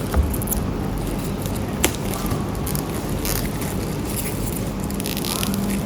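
Cellophane wrapping being crinkled and peeled off a keyboard box in short scattered crackles, with a sharp click about two seconds in, over a steady low rumble.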